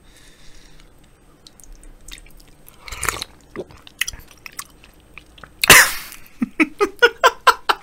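A person slurping soup broth from a spoon, with a soft slurp a few seconds in and a louder one just before the end. A quick run of short vocal sounds follows the loud slurp.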